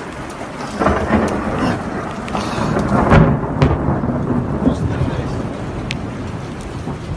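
Thunder from a storm: a loud clap breaks about a second in and rolls on in a deep rumble that peaks around three seconds, over the steady hiss of heavy rain.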